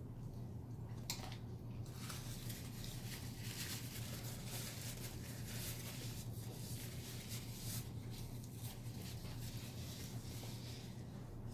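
Chewing food close to the microphone, crackly and wet, heaviest from about two to eight seconds in, with a single click about a second in. A steady low hum runs underneath.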